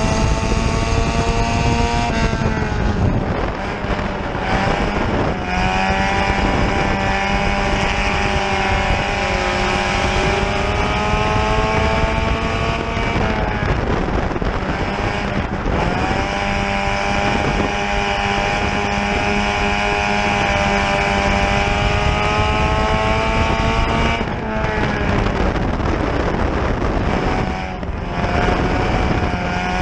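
Front-wheel-drive dirt track race car's engine, heard from inside the cockpit at racing speed. It drops in pitch several times as the driver lifts off for the turns, then winds back up on the throttle.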